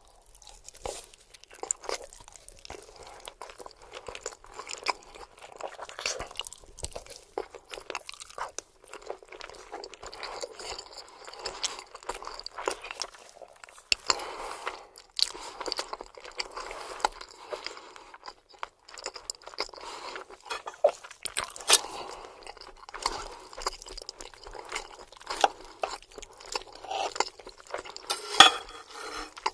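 Close-miked chewing of lasagna: a dense, irregular run of mouth clicks and crackles, with one sharper, louder click near the end.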